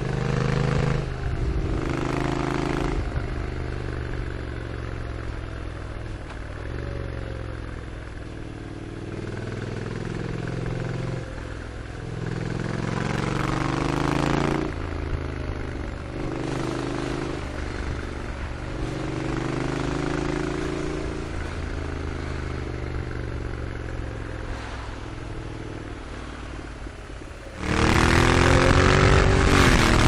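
Honda NC750X motorcycle's parallel-twin engine and exhaust under way, its pitch climbing and dropping with the throttle and gear changes. About two seconds before the end the whole sound suddenly gets much louder.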